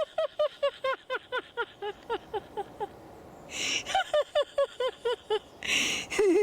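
A person laughing hard in long runs of rhythmic 'ha-ha-ha' pulses, about four or five a second, the first run trailing off. Two sharp, gasping in-breaths come about halfway through and near the end, each starting a fresh run of laughter. This is deliberate laughter-yoga laughing after a chant.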